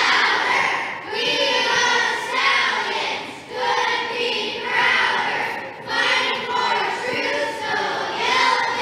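A large group of children and adults singing a team cheer in unison, in short phrases about a second long with brief breaks between them.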